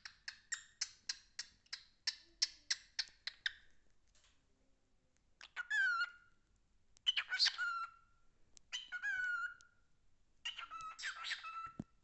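Cockatiel calling: a rapid run of short, sharp chirps, about five a second, for the first three and a half seconds. After a short pause come four chattering whistled phrases, each ending in a falling note.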